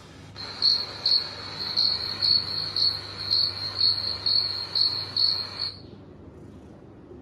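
Recorded cricket chirping from a phone's cat-entertainment video: a steady high trill with about two louder pulses a second, stopping shortly before the end.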